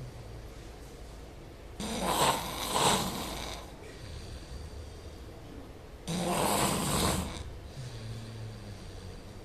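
A man snoring loudly in his sleep: two loud snores about four seconds apart, the first one longer, with quieter breathing between them.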